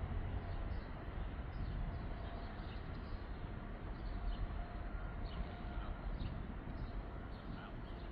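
Coal train rolling past, a steady rumble and rail noise from the passing cars, with birds chirping now and then over it.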